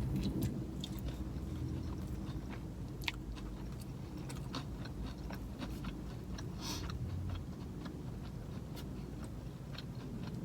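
A person chewing and biting boneless chicken wings up close: many small wet mouth clicks and crunches over a low steady hum.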